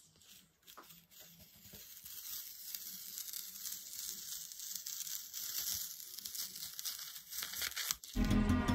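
Clear masking film being peeled slowly off watercolour paper: a crackling, tearing hiss that grows louder over several seconds. Background music starts just before the end.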